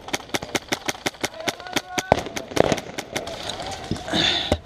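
Airsoft guns firing a rapid string of sharp shots, about six or seven a second, with a louder short burst of noise near the end.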